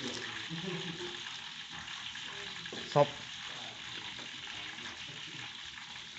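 Oil sizzling steadily in a wok as food fries: a constant high hiss. About three seconds in, a single short loud sound cuts through it.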